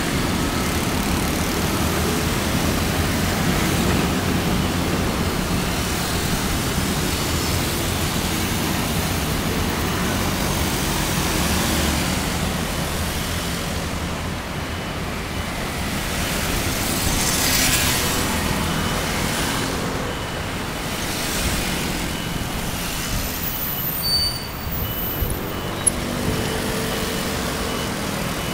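Busy street traffic dominated by a stream of motor scooters passing, their small engines running with tyre and road noise. A brief hiss comes about two-thirds of the way through, and a few short clicks come near the end.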